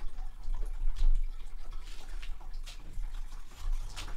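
Pages and cover of a hardcover photo book being turned by hand: paper rustling with a few short crisp flicks and taps, over a steady low rumble.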